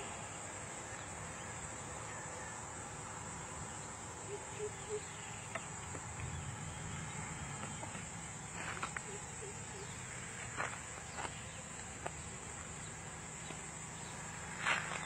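Insects in the roadside vegetation keep up a steady high-pitched chirring. A few soft clicks and knocks come through here and there, the loudest just before the end.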